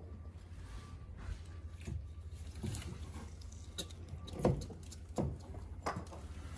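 Scattered metal knocks and clunks, about half a dozen, as a new CV axle is worked into the front hub and knuckle of a 2005 Honda Odyssey by hand. The loudest clunk comes about four and a half seconds in, over a steady low hum.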